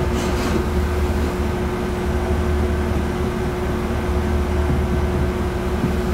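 Steady electric motor hum: one constant mid-pitched tone over a low drone, with no changes in speed. It stops abruptly at the very end.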